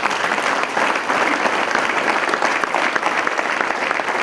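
Audience applauding: the dense clapping of many hands at once.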